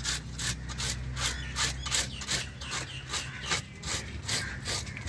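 Knife blade scraping quickly along a large fish's skin to take off the scales, in short strokes about four a second.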